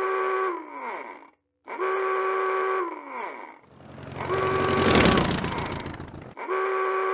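Dubbed-in sound effects: a buzzing electronic tone, held for about a second and then sliding down in pitch, plays twice at the start and once more near the end. Between them comes a rumbling whoosh that swells and fades.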